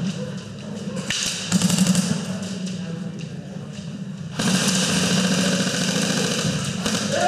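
Airsoft electric guns firing on full auto, a rapid mechanical buzz of gearbox cycling and BB shots in bursts, with a short burst about a second and a half in and a longer, loud stretch starting abruptly about four and a half seconds in.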